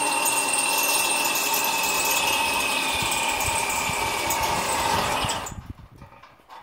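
Cordless drill running steadily under load into a metal mounting rail, a high whine that sags slightly in pitch before it stops suddenly about five seconds in.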